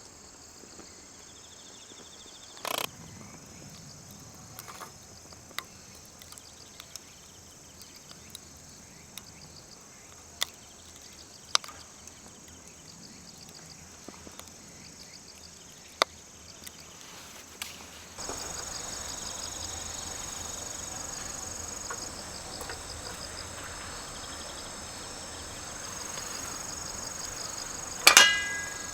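Insects, crickets by the tags, chirping in a steady high pulsing trill, with scattered single sharp clicks. About two thirds of the way through the background suddenly gets louder, and a loud metallic clink comes near the end.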